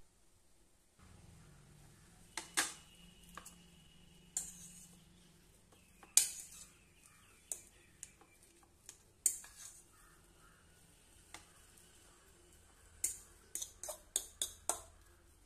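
Metal fork clinking and scraping against a bowl while mashing boiled potatoes: sharp clicks at irregular intervals, with a quicker run of them near the end, over a faint low hum.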